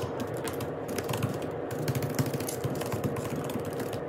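Typing on a laptop keyboard: a quick, uneven run of key clicks.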